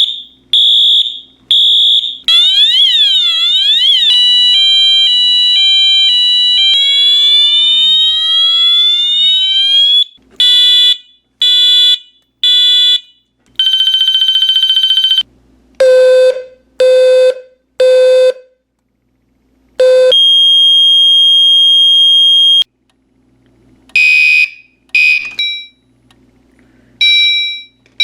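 Fire alarm horns and sirens from a collection sounding one after another in quick succession: pulsed high beeps, a warbling yelp, alternating two-tone hi-lo notes, a rising whoop sweep, groups of short beeps and long steady tones.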